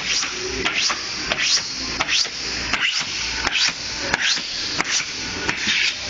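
Repeated quick rasping strokes over vinyl wallpaper, about two a second, as the paper is brushed or smoothed.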